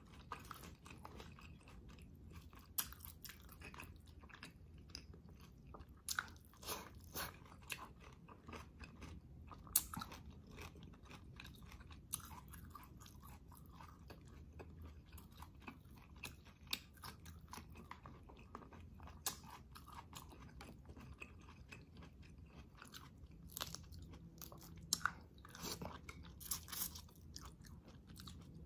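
Close-up chewing of shrimp and catfish eaten by hand, with scattered sharp clicks and crunches.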